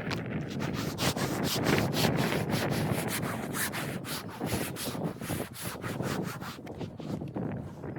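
Irregular rubbing and scraping with many short clicks and knocks, and wind buffeting the microphone.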